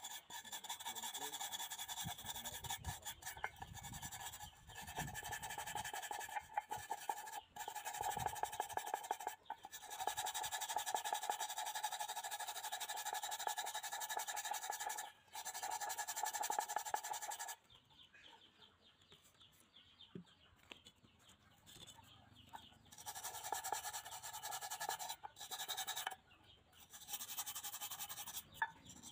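Electric rotary wire brush running with a steady motor whine as it scrubs rust off a steel stove part. It stops for about five seconds past the middle, then starts again and cuts out briefly a few times near the end.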